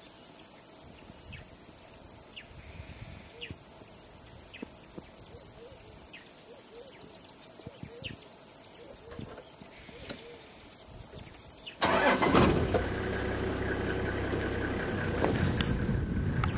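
A steady high insect trill over quiet open country, then about twelve seconds in a vehicle engine starts and keeps running, much louder than the background.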